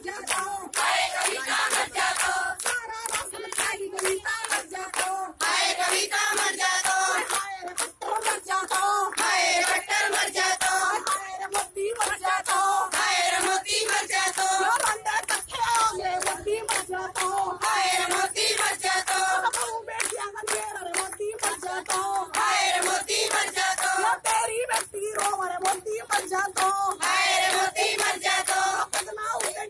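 A group of women singing together with hand clapping running through the song.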